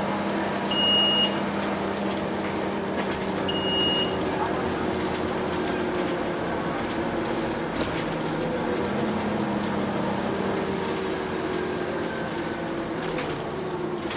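Inside a moving Scania OmniCity double-decker bus: the diesel engine and driveline run with a steady hum whose pitch slowly drifts up and down, over road rumble. Two short high beeps sound about three seconds apart near the start.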